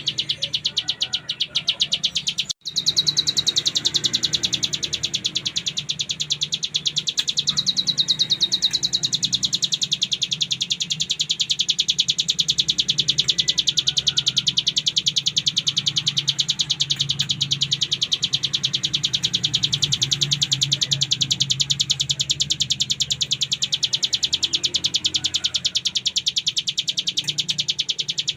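Ciblek gunung, a mountain prinia, singing in a rapid, unbroken buzzing trill (the 'ngebren' style). The song stops briefly about two and a half seconds in, with a faint low hum underneath.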